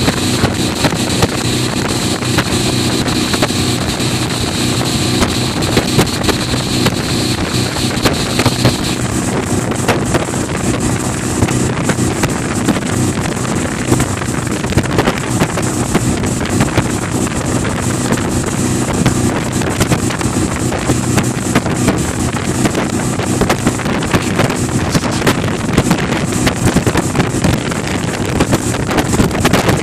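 Tow speedboat's engine running steadily at speed, with wind buffeting the microphone and the wake rushing.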